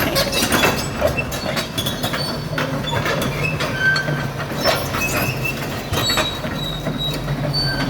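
Crawler pile driver moving along the street: its engine runs steadily under frequent metallic squeaks and clanks from the steel tracks, a racket like a slow train.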